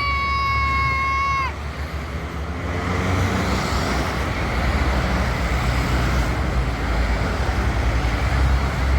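A bus's telolet horn holding one steady note for about a second and a half, its pitch dipping as it cuts off, followed by steady road traffic rumble.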